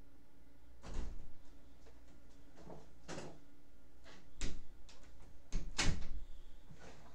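Several separate knocks and bumps of a person moving about close by, the loudest near the end.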